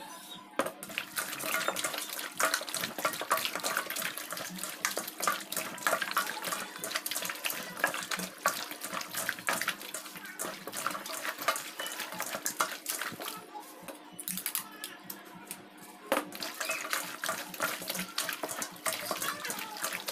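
Hands squelching and slapping raw chicken pieces coated in beaten egg in a large metal bowl: a dense run of wet, sticky squishes and small slaps as the meat is kneaded and turned.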